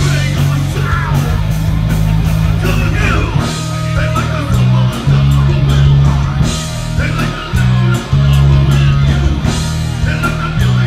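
Live rock band playing: electric guitar, electric bass and drum kit, with a bass line moving note to note about once a second under a steady drum beat.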